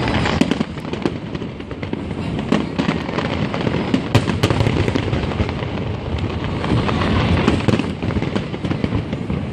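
Fireworks going off in rapid succession: a dense, continuous run of sharp cracks and pops over a steady rumble of bursts.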